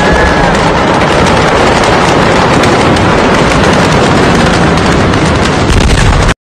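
Loud, continuous crackling and popping from a large smoky fire, dense enough to overload the phone's microphone; it cuts off abruptly near the end.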